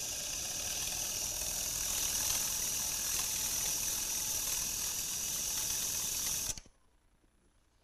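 A ring of glued wooden segments, held in a steel hose clamp, pressed face-down against a sanding disc spinning on a lathe: a steady hiss of abrasive grinding wood. It cuts off suddenly about six and a half seconds in, when the ring is lifted off the disc.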